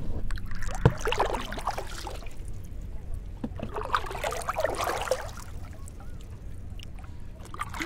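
Water and water hyacinth leaves swishing against a narrow wooden boat's hull as it pushes through a thick mat of hyacinth, in two rushes a couple of seconds apart, over a steady low hum.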